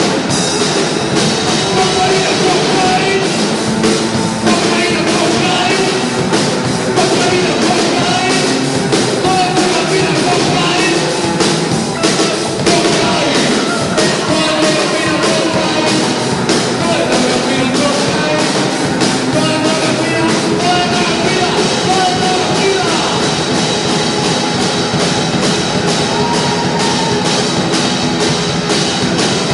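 A live rock band playing loudly on stage, a drum kit keeping the beat under guitar, with a voice singing over it.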